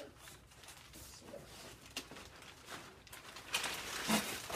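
Cardboard packing panels and crumpled packing paper rustling and scraping as they are handled and pulled out of a large shipping box, in irregular bursts with a few sharp knocks. The loudest crinkling comes near the end.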